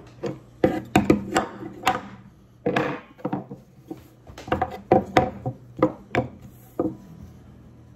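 Irregular wooden knocks, taps and scrapes: an acoustic guitar's body being bumped and wooden coasters being shifted on a wooden table while things are set up.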